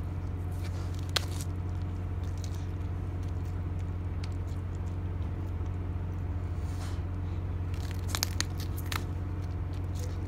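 A large Sudanese sulcata tortoise biting into and chewing a thick, fibrous cactus pad, giving scattered crisp crunches with a cluster near the end. A steady low hum runs underneath.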